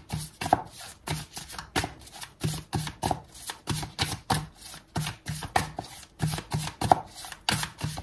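A tarot deck being shuffled by hand: packets of cards dropped and slapped onto the deck in a steady rhythm, about three times a second.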